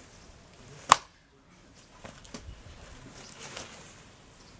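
A hatchet striking a piece of firewood on a chopping block once, about a second in, a single sharp chop; faint small knocks and rustles of wood chips follow.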